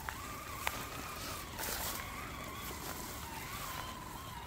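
Electric drive motor and gearbox of an Absima Sherpa RC scale crawler whining while driving through grass, the pitch wavering slightly with the throttle. A few sharp clicks come in the first second, and a brief rustling hiss about two seconds in.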